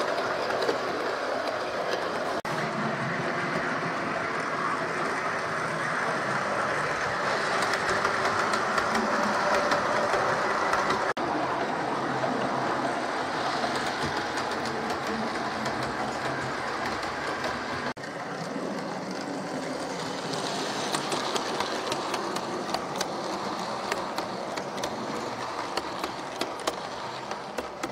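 Bachmann OO gauge model of the WW1 ambulance train running along the track: a steady whirr and rumble of the model's motor and wheels, with a run of sharp clicks over the rail joints in the last several seconds.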